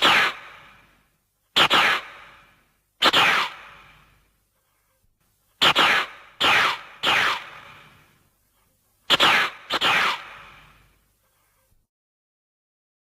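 Giant arthropod monster sound effect: about nine short, harsh shrieks, each starting suddenly and fading away within about a second, some coming singly and others in quick runs of two or three.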